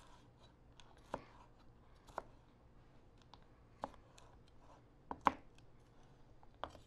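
Chef's knife slicing a bell pepper on a plastic cutting board: about six sharp, irregular knocks as the blade strikes the board, roughly a second apart, the loudest about five seconds in.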